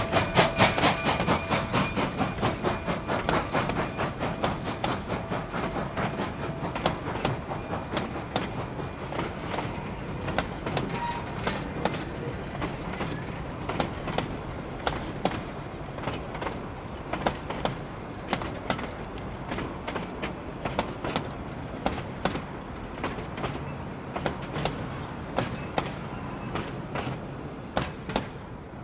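Narrow-gauge steam train's cars rolling past, the wheels clicking steadily over the rail joints, fading slowly as the train draws away. A steam whistle's chord dies away in the first couple of seconds.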